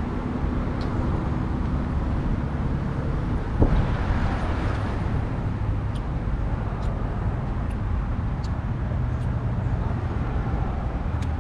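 Steady low rumble of road traffic, with one sharp thump about three and a half seconds in and a few faint clicks.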